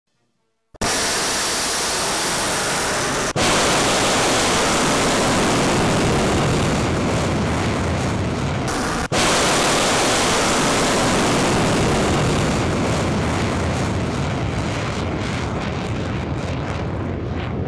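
Rocket motor of a short-range ballistic missile firing from a rail-car launcher: a loud roar that starts suddenly about a second in and holds steady, with two abrupt breaks, then slowly fades as the missile climbs away.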